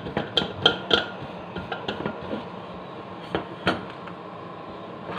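Stainless-steel dome cap of a range-hood filter plate clinking and tapping as it is handled and fitted into place: three quick light metallic taps within the first second, a few softer ones after, and another sharp tap about three and a half seconds in.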